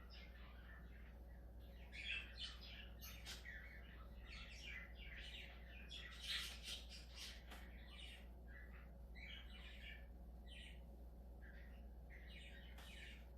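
Budgerigar chattering: a continuous run of short chirps and warbling notes, loudest about two seconds in and again about six seconds in.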